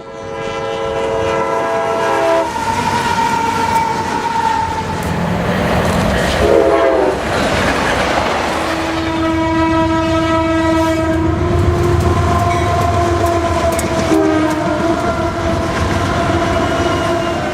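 CSX freight locomotive horn blowing the grade-crossing signal, long, long, short, long, over the rumble of the train and wheels on rail. The horn chord drops in pitch partway through as the locomotive passes.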